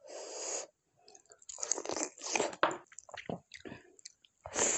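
Close-miked eating: bites and chewing of a mouthful of chicken and rice taken by hand, in irregular crackly bursts.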